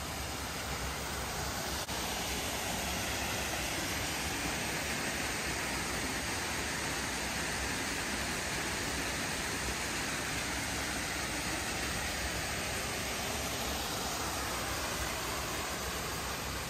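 Steady rushing noise of flowing stream water, swelling somewhat louder through the middle and easing again near the end.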